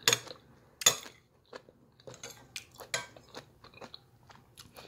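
A metal spoon clinking and scraping against a plate while eating, with a few sharp clinks (near the start, about a second in, and the loudest about three seconds in) and lighter ticks and chewing between.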